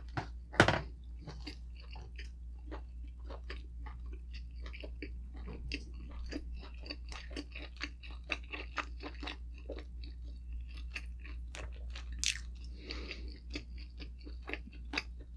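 Close-up chewing of tender pork from sinigang soup, with frequent short wet mouth clicks, several a second, and one louder click less than a second in.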